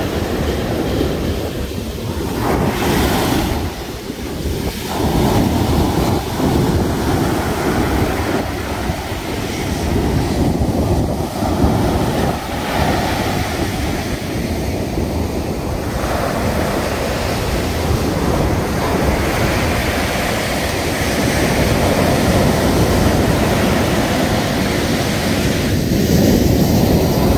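Large waves breaking and washing up the beach, surging and falling every few seconds, with wind buffeting the microphone. The sea is rough.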